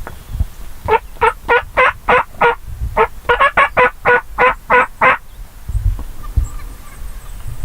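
Turkey yelping: a run of about six evenly spaced yelps, a brief pause, then about eight more.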